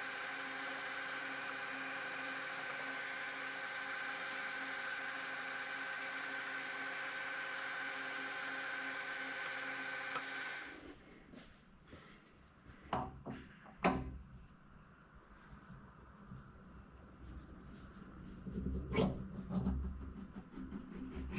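Metal lathe running at a steady speed with a multi-tone gear whine while a carbide-ball burnishing tool is run through the part to finish it to size. The lathe stops about eleven seconds in, followed by a few sharp metallic knocks and clicks of handling.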